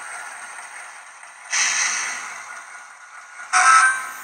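Digitrax SDXH167D sound decoder in an HO-scale Proto 2000 SD9, playing diesel locomotive sound effects through a small speaker as the model runs. A sudden hiss of air about one and a half seconds in fades away, then a short, loud pitched blast comes near the end.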